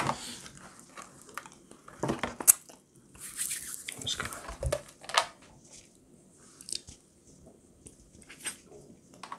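Plastic packaging tray crinkling, with small clicks and snaps, as pieces of a broken dark chocolate Easter egg are picked out and eaten. The sounds are scattered and brief, with a short rustle about three seconds in.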